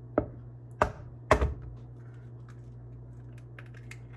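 An egg knocked against the rim of a mixing bowl to crack it: three sharp taps within about a second and a half, followed by faint small clicks, over a steady low hum.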